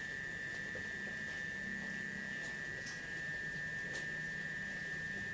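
Steady background hum with a constant high-pitched whine, and a few faint ticks.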